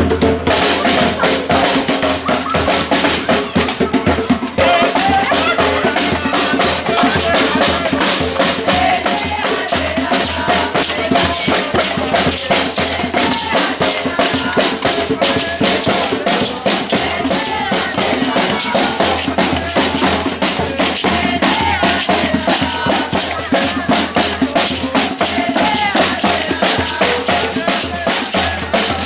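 Batucada samba percussion ensemble playing a steady driving rhythm: deep surdo bass drums under dense, fast snare-drum strokes.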